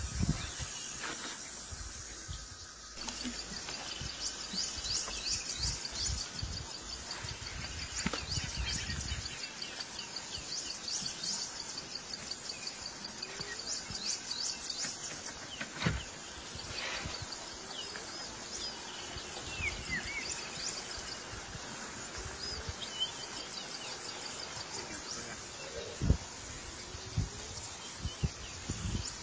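Bush ambience: birds chirping in rapid repeated series for much of the time, with insects, a low rumble underneath and a couple of sharp knocks.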